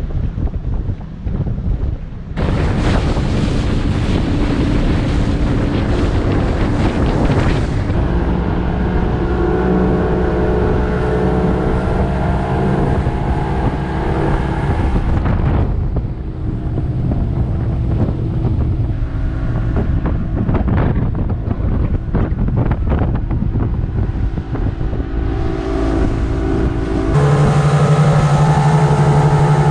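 Evinrude 200 HO two-stroke outboard running at high speed, pushing a RIB hull through the water, with wind buffeting the microphone and rushing spray. The sound changes abruptly several times. In the last few seconds the engine's steady note is loudest and clearest.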